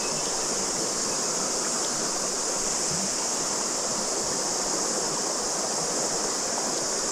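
River water rushing over rocks, with a steady high-pitched chorus of cicadas over it.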